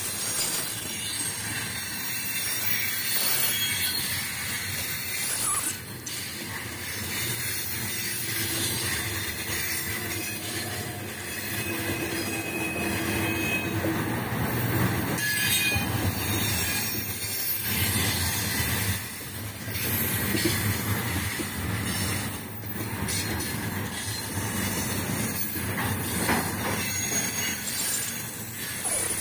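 A freight train's loaded container flatcars rolling past close by: a continuous noise of wheels running over the rails, steady with brief dips now and then.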